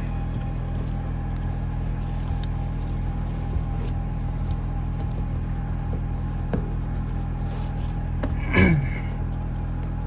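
A plastic ISOFIX guide is pushed into the gap between a car's rear seat cushions: a few faint clicks over a steady low hum, then a short louder scrape with a falling squeak about eight and a half seconds in.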